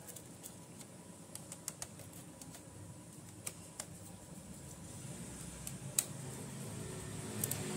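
Scattered light clicks and taps of a small screwdriver undoing the heatsink screws of a Samsung NP300E4X laptop. A low rumble builds over the last few seconds.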